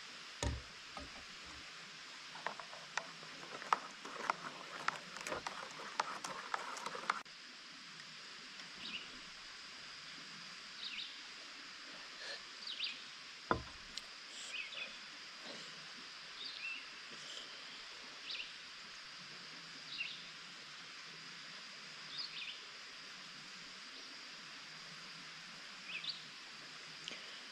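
Outdoor ambience: a run of crackling clicks for about the first seven seconds, then scattered short high chirps every second or two over a steady hiss.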